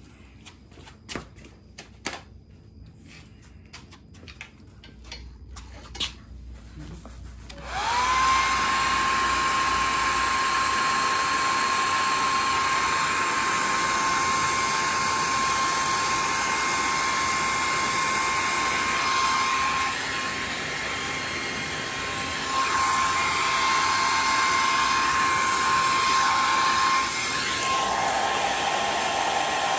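A few light clicks and taps, then a heat gun switched on about eight seconds in. Its fan motor spins up to a steady whine over a rush of hot air. The level dips briefly past the middle, and the whine drops slightly in pitch near the end.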